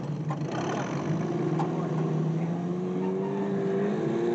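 An engine running steadily, its pitch rising slowly about halfway through as it picks up revs.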